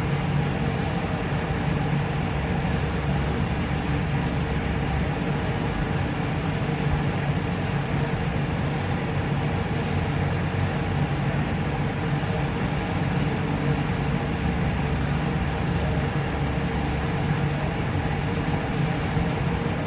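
A steady, low mechanical hum and whir.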